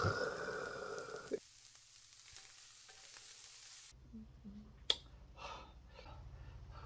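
Whole frogs frying and sizzling in a pan, with a short high squeal in the first second or so. The sizzle cuts off suddenly about four seconds in, leaving a low hum and a few faint clicks.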